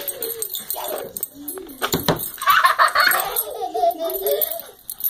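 Laughter and giggling from a woman and a toddler, with a sharp knock about two seconds in.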